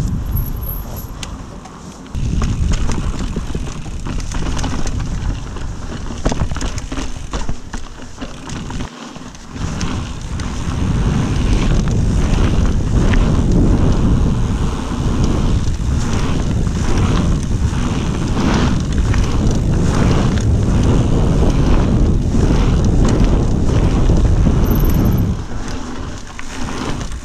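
Mountain bike ridden fast on a dirt trail, heard through an action camera: wind buffeting the microphone over tyre rumble on dirt, with frequent rattles and knocks from the bike over bumps. It gets louder after about ten seconds and eases off near the end.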